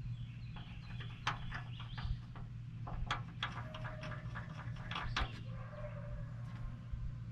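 Soapstone marker scratching and tapping in a quick run of short strokes against the painted steel UTV bed and bracket, with two faint held tones in the middle and a steady low hum under it.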